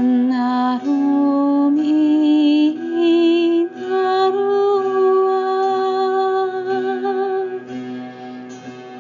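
A woman singing wordless light-language vocals with vibrato over a steady drone of ringing strings. Her notes climb step by step over the first few seconds into one long held note, and her voice drops away near the end while the drone carries on.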